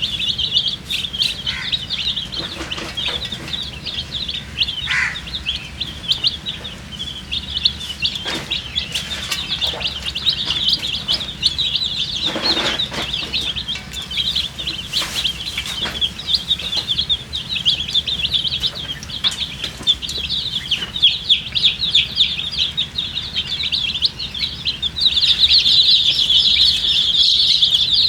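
A crowd of baby chicks peeping continuously, high-pitched and overlapping, with a few scattered knocks; the peeping grows louder near the end.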